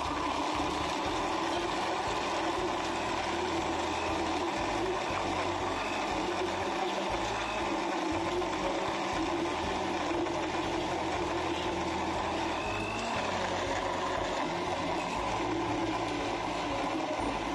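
Countertop electric blender running steadily, crushing ice into a dark blended drink.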